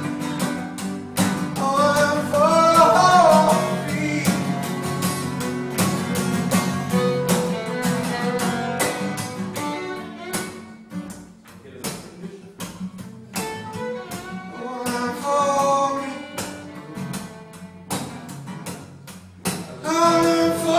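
Live acoustic string music: two acoustic guitars strummed in a steady rhythm under a fiddle playing a bowed melody with slides and vibrato.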